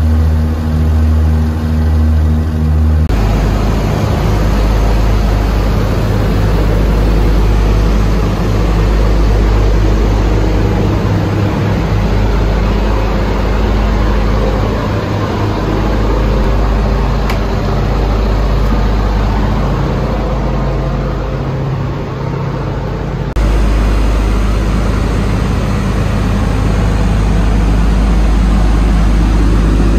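Grumman Albatross's twin radial engines and propellers droning steadily, heard inside the cabin in flight. The drone's tone shifts abruptly about three seconds in and again about three-quarters of the way through.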